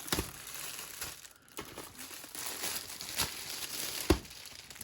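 Plastic packaging of a diamond painting kit crinkling as it is handled, with scattered clicks and one sharp knock about four seconds in.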